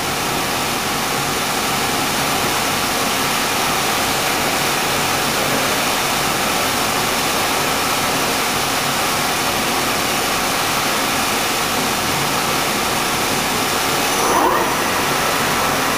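Dainichi MG75 CNC lathe's spindle headstock running steadily in the medium gear range at about 350 RPM, just after a gear change.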